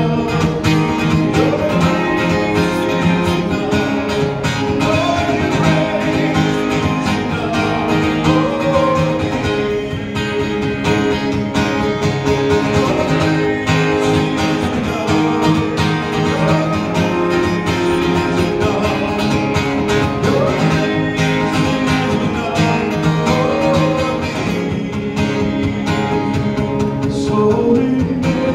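Acoustic-electric guitar strummed in a country-style song, with a man singing along, amplified through a small PA.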